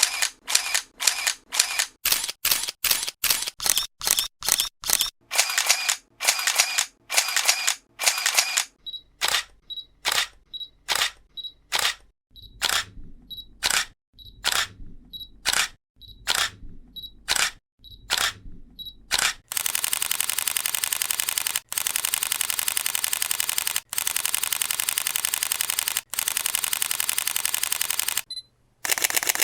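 Camera shutter sound effects. First come single and doubled shutter clicks, then clicks each paired with a short high tone. About two-thirds of the way in, the clicks turn into a very fast continuous burst, which stops briefly near the end.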